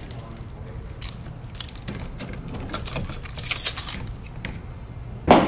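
Keys jangling and clinking in a run of small metallic chinks, then a louder knock just before the end.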